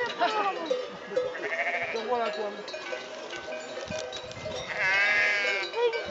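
A flock of sheep bleating, several calls overlapping, with a long wavering bleat near the end as the loudest call.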